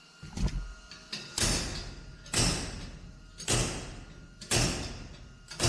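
Heavy metal blows on a vehicle's sheet-metal body panel, about one a second, six in all, each ringing and dying away: dent work to bring up low spots in the panel.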